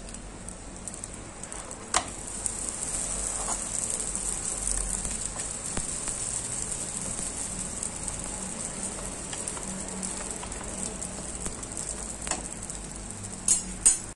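Katmer dough frying in a nonstick pan, sizzling with a steady high hiss. There are sharp clicks from metal tongs against the pan about two seconds in and a few more near the end.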